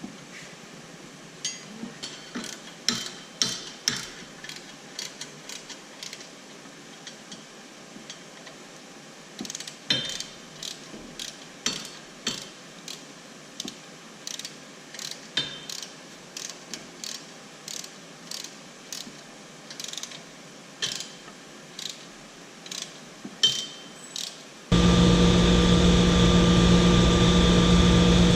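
Irregular sharp metallic clicks and clinks of hand tools being worked on metal. About 25 seconds in, these cut off abruptly and give way to a loud, steady engine hum.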